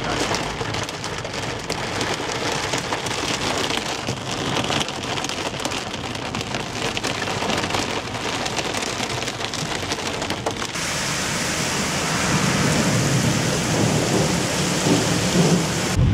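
Heavy thunderstorm rain drumming on a car's roof and windscreen, heard from inside the car as a dense, fast patter. About eleven seconds in it turns to a steadier, brighter hiss with a low rumble building underneath.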